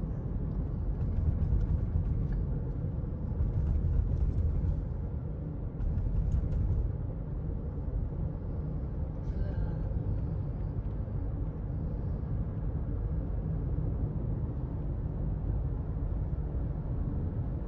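Steady road and engine rumble heard from inside a moving car's cabin, with a few brief hissing noises on top.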